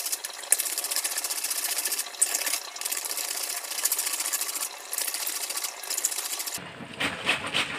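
Cabbage being shredded on a plastic mandoline slicer: rapid, rhythmic, crisp scraping strokes of the leaves across the blade, with a few brief pauses.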